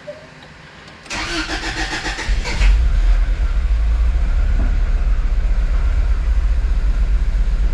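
Cold start of a turbocharged Honda B18B1 1.8-litre four-cylinder in an Acura Integra. The starter cranks for about a second and a half, then the engine catches and settles into a steady idle with a deep rumble.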